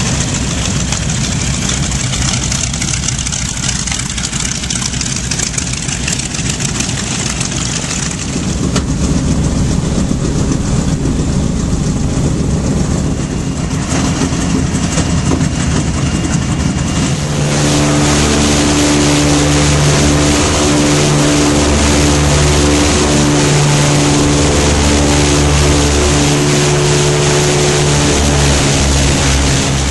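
B-25J Mitchell bomber's two Wright R-2600 radial engines running, taxiing and then in flight, heard loud from inside the aircraft. About 17 seconds in the sound turns into a steadier, deeper drone with a strong even hum.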